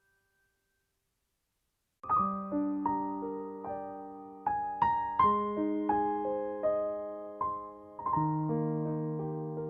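Silence, then about two seconds in, piano music begins: a slow melody of single struck notes over held low chords, each note fading after it is played.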